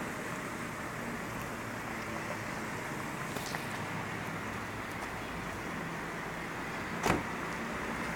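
A bus's diesel engine running steadily as a low rumble while the bus manoeuvres slowly in a tight space. A single sharp knock about seven seconds in.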